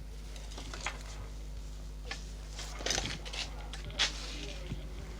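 Small, scattered clicks and scrapes of hand tools handling a smartphone's internal parts during a power-button repair, the loudest about four seconds in, over a steady low hum.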